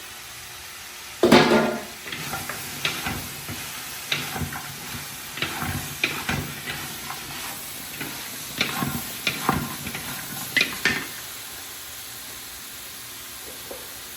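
Vegetables being stir-fried: a spatula scrapes and knocks against the pan over a steady sizzle. There is a loud clatter about a second in, and the stirring stops about eleven seconds in, leaving only the sizzle.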